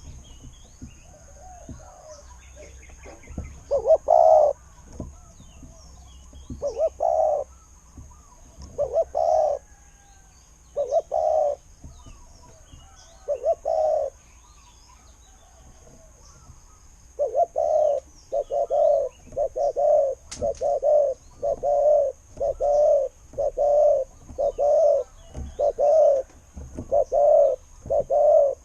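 Spotted dove cooing: a few coos spaced a couple of seconds apart, then, after a pause, a quicker steady run of coos. A faint, steady high-pitched whine runs underneath.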